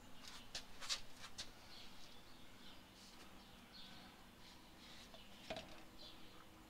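Mostly quiet, with a few light clicks from tools and brake parts being handled in the first second and a half and a single knock about five and a half seconds in. Faint high chirps sound in the background.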